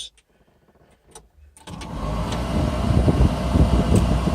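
Diesel engine of a Ransomes FrontLine 723D mower starting: it catches about a second and a half in, builds up over the next second and then runs steadily.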